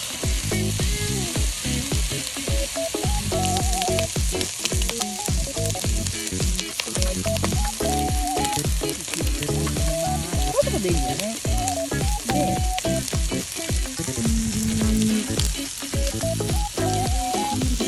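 Bacon sizzling steadily in a hot pan over a gas burner, under background music.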